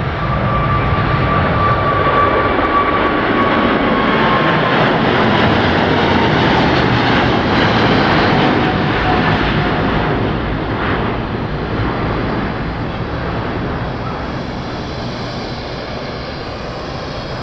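Boeing 777-300ER's two GE90-115B turbofans at takeoff thrust, passing by: loud jet engine noise with a whine that falls in pitch as the aircraft goes past, loudest in the first half, then fading as it climbs away.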